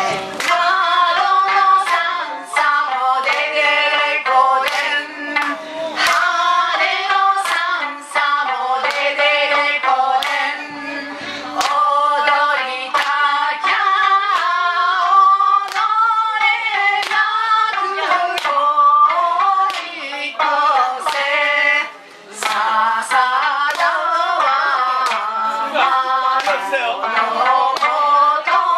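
Women singing a song live, over small plucked stringed instruments and sharp rhythmic clicks or claps.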